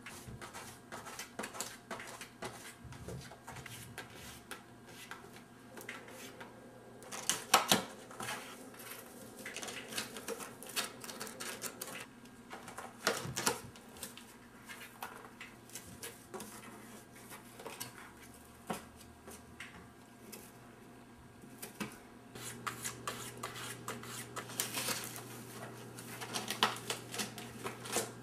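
Cardboard box crackling and tapping irregularly as a cat bites and rubs its head against a loose flap, with louder bursts about seven and thirteen seconds in and again near the end.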